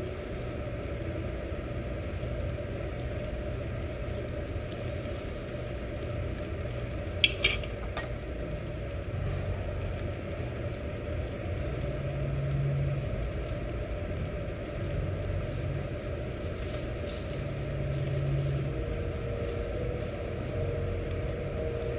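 Food sizzling on a tabletop yakiniku grill over a steady low hum, with a brief clatter about seven seconds in.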